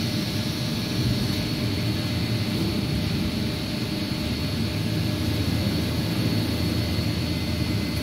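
Steady low mechanical drone of a running injection moulding machine and factory machinery, with a thin steady high whine above it.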